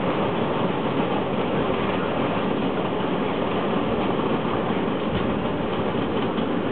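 Freight train of loaded flat wagons rolling past on the rails, a steady running noise of wheels on track.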